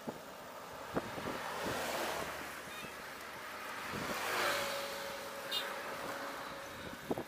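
Wind buffeting the microphone while riding along a road, with passing cars swishing by close alongside; the loudest pass is about four and a half seconds in. There are a couple of short knocks near the end.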